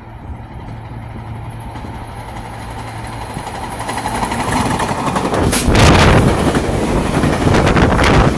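SEPTA Silverliner IV electric multiple-unit commuter train approaching and passing close by, the rumble of its wheels on the rails growing steadily louder. A few sharp clacks come from the wheels on the track as the cars go by in the second half.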